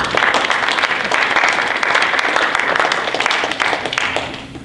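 Audience applauding, many hands clapping at once; the clapping dies away about four seconds in.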